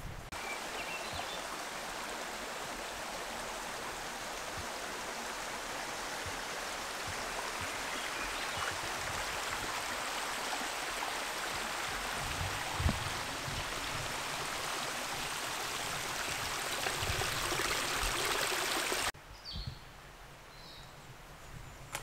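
Rushing creek water close by, a steady, even rush of a mountain stream. It cuts off abruptly about nineteen seconds in, leaving quieter woods with a few short high chirps.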